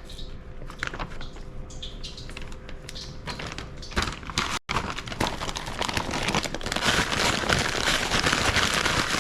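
Plastic bag crinkling and rustling while catfish fillets are coated in a dry breadcrumb mix, with small clicks at first and denser, louder crackling in the second half after a brief cut.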